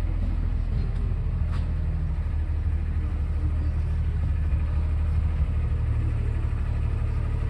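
Ride train running, a steady low engine rumble with an even hum.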